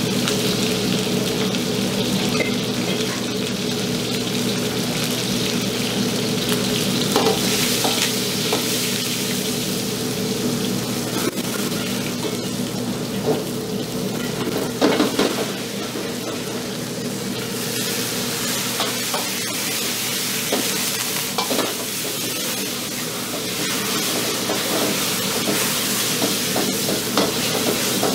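Beef and onions sizzling in a hot steel wok as they are stir-fried, with the metal ladle scraping and clanking against the wok. A steady low hum runs underneath. The sizzle swells briefly about halfway through, where a ladle of sauce goes into the wok.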